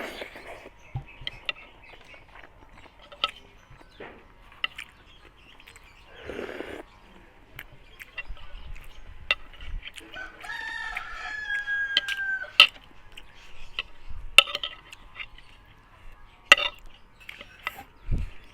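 Close-up eating sounds, chewing with scattered sharp clicks and taps, while a rooster crows once in the background, one drawn-out call of about two and a half seconds starting about ten seconds in.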